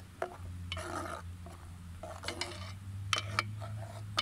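A spoon stirring diced onions in a metal cooking pot, scraping and clinking against the pot in several short strokes, over a steady low hum.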